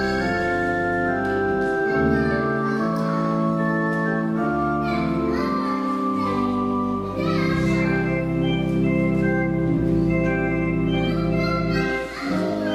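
Organ playing slow, sustained chords over deep bass notes, the harmony changing every second or two.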